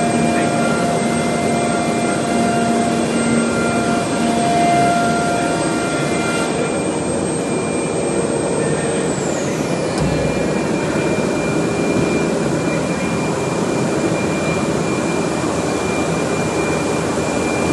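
SCM Morbidelli M600 five-axis CNC machining centre running: a loud, steady machine noise with high whining tones. About nine seconds in, a high whine falls sharply in pitch and a low thump follows, then a different steady whine holds.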